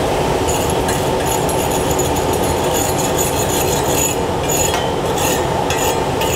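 Chipping hammer scraping slag off a fresh 6010 stick weld on steel plate, in irregular scratchy strokes that begin about half a second in. The slag lifts off the vertical-down bead easily, so it is scraped rather than beaten off.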